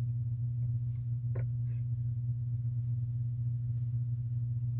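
Steady low electrical hum, with a few faint clicks of small electronics parts being pressed together by hand, the clearest about a second and a half in.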